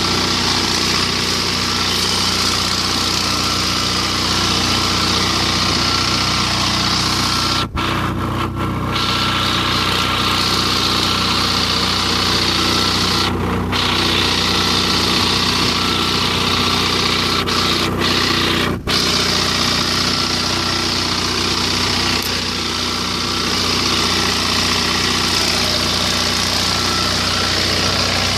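Captain 25 hp mini tractor's diesel engine running steadily under load as it drives a rotavator through the orchard soil, a constant drone with no change in pitch.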